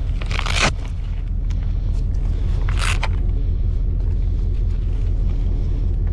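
Steady low rumble under two short rustles of gear being handled, one about half a second in and one near three seconds.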